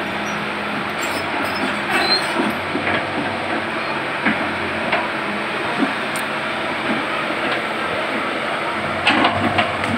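Tracked hydraulic excavator's diesel engine running steadily as it digs a riverbank, with scattered metallic clanks and knocks from the bucket and boom, a cluster of them near the end.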